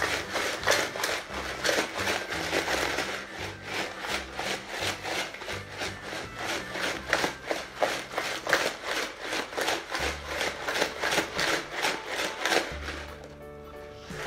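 Ice and salt rattling inside a plastic jar shaken hard by hand to freeze shaken ice cream, about four shakes a second. The shaking stops about a second and a half before the end.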